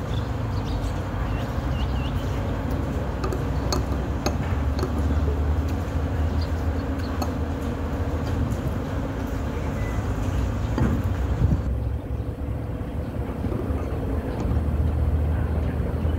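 Steady low rumble of background noise, with a few light clicks of a metal spoon and chopsticks against a ceramic noodle bowl about four seconds in.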